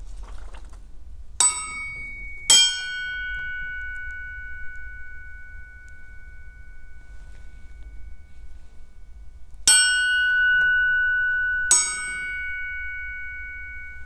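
Forged one-piece steel Leonhard Mueller axe heads struck four times, each strike ringing on for seconds with clear, high, bell-like tones; the second and third strikes are the loudest. The long, clean ring is the traditional test for sound, uniform metal free of cracks.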